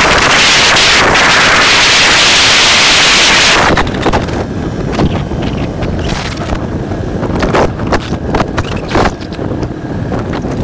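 Wind blasting the microphone for the first few seconds, then dirt bike engines running as the bikes ride off, with gusts of wind buffeting over them.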